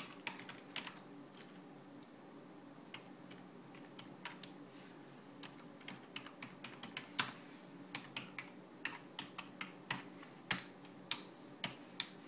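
Typing on a Microsoft Digital Media Keyboard 3000's rubber dome keys: irregular keystroke clacks, sparse at first and quicker from about halfway, with a few louder strikes, stopping just before the end. A faint steady hum lies underneath.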